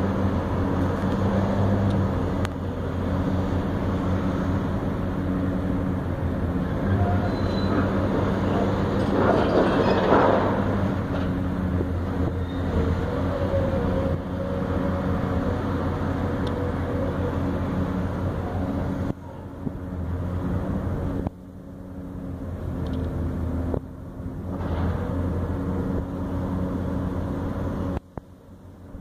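Diesel engine of a high-reach demolition excavator running steadily, a low drone. A louder, rough noise swells about nine to eleven seconds in, and the sound cuts out briefly several times in the last ten seconds.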